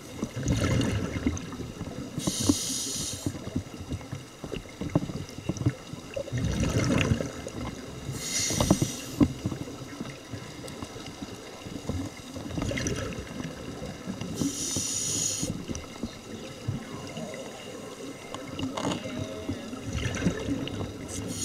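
Scuba diver breathing through a regulator underwater: a short hiss of inhalation alternating with a low bubbling rush of exhaled air, about one breath every six seconds.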